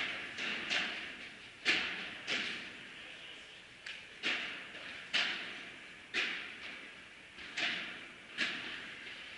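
Padel rally: the ball is struck by padel rackets and bounces on the court, about a dozen sharp, irregularly spaced pops, each with a short echo in a large hall.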